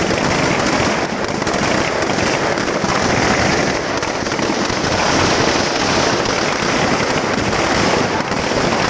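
Firecrackers packed inside a burning Ravana effigy going off in a rapid, continuous crackle.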